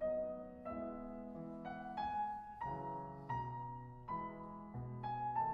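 Soft background piano music: a slow melody of held notes, a new note roughly every half second.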